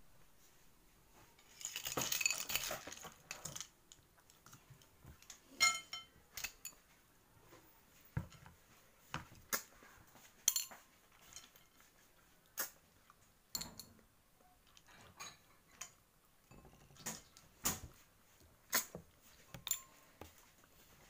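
Metal spoons clinking and scraping against ceramic bowls and plates as food is served, with a short run of rattling about two seconds in, then scattered single clinks.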